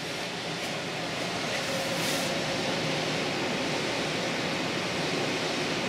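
1500 W power inverter running under a load of about 540 W: a steady whirring hiss of its cooling fan with a faint hum, building a little over the first couple of seconds and then holding even.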